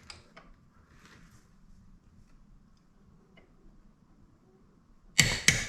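Click-type torque wrench on a lug nut breaking over with two sharp clicks near the end, after a few seconds of quiet handling. The wrench is set to 100 ft-lb, so its click means the nut held at least that torque without turning.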